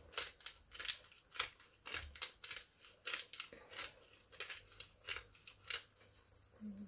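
Hand-twisted pepper grinder grinding black peppercorns: a rapid run of short gritty rasps, about four a second, that stops about six seconds in.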